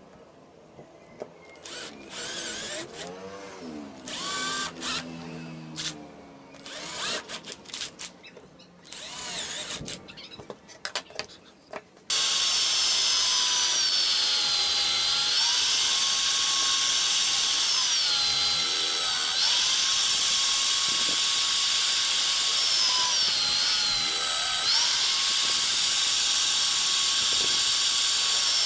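A cordless drill runs in short bursts as it drills small holes into a wooden board. About twelve seconds in, a drill mounted in a drill stand starts running steadily and loudly as its bit bores into plywood, its pitch dipping now and then as the bit takes load.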